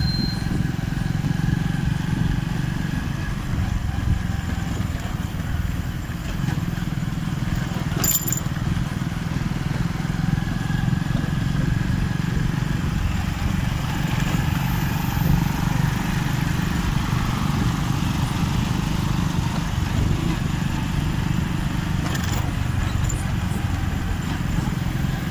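Motorcycle engine running steadily on the move, with low road rumble. A brief sharp click about eight seconds in.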